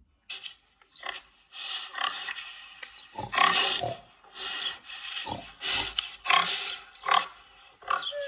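Recorded pig sounds: a run of short, harsh grunts and squeals of uneven length, played back for the class to identify.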